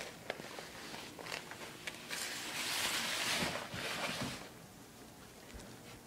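Fabric and plastic rustling and scuffing over a tile floor as a cat wriggles along tangled in clothing, with a few light knocks near the start. The rustling is loudest about two to four and a half seconds in.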